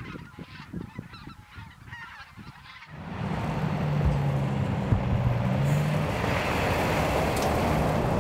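Canada goose honking in flight for about three seconds. Then an abrupt change to a much louder truck driving past on a gravel road: a steady engine drone under the rushing noise of tyres on gravel.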